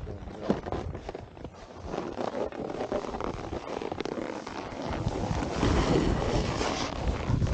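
Wind buffeting the microphone over the scrape of snowboards sliding on packed snow, both growing louder about five seconds in.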